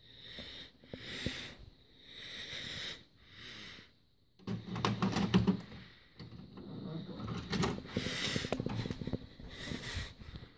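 Soft handling noises from a VHS cassette, then clicks and knocks over a low hum as the cassette is pushed into a front-loading VCR and drawn in by its loading mechanism.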